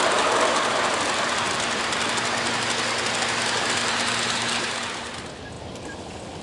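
G-scale model freight train rolling past close by: a steady noise of wheels running on the track with a low steady hum underneath. The sound drops away sharply about five seconds in, leaving a much quieter background with a few faint ticks.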